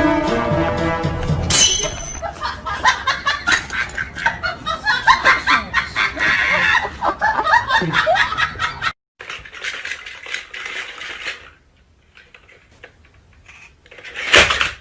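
Background music for the first second or so, then people laughing in short bursts with light clinking, a quieter stretch, and a short loud burst near the end.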